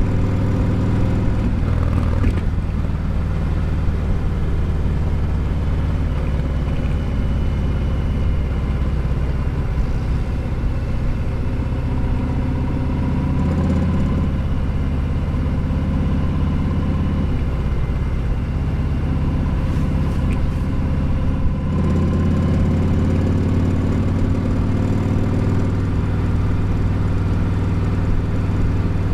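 Harley-Davidson Sport Glide's Milwaukee-Eight 107 V-twin running steadily, its engine note rising and falling a few times with the throttle.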